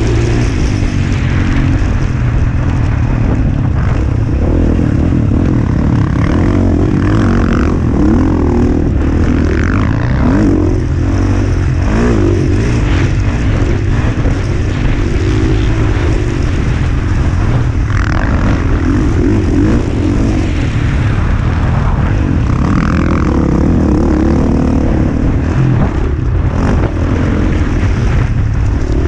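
Motocross dirt bike engine racing on the track, revving up and falling back again and again through throttle and gear changes. Heavy wind rumble on the microphone runs under it.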